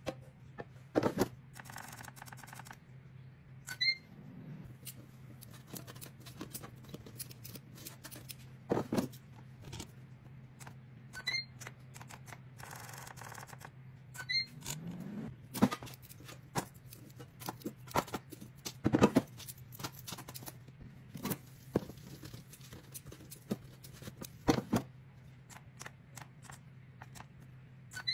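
Scattered knocks, clicks and light scrapes of an air fryer basket being handled and dough rings set into it, over a steady low hum.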